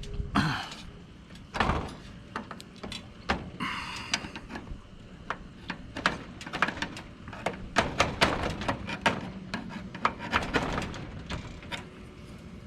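Irregular clicks, taps and two short scrapes of a plastic window handle being pushed onto its square pegs and worked in a greenhouse window frame.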